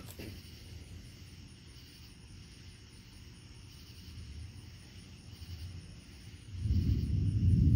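Insects, likely crickets, chirping in a steady pulsing trill over a faint low rumble. About two-thirds of the way in, a loud roll of thunder rises suddenly and keeps rumbling to the end.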